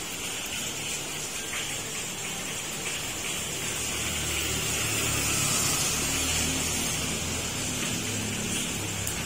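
Heavy rain falling with a steady hiss. From about the middle, a motor vehicle's engine rumble comes in low and grows louder.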